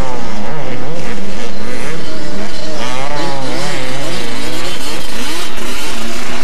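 Several two-stroke motocross bikes revving hard, very loud, their engine pitch rising and falling rapidly as the throttles are worked, with more than one engine heard at once.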